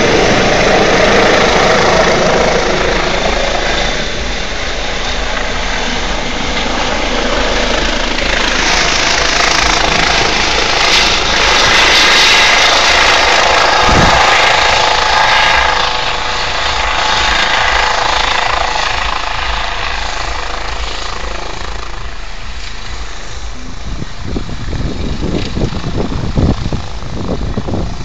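Medical helicopter descending to land, its rotors and turbine engine making a loud, steady noise. It is loudest about halfway through as it passes close, then eases off as it settles. Gusty wind buffets the microphone near the end.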